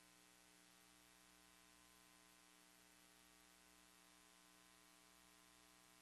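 Near silence: a faint steady hum with hiss, the recording's background noise.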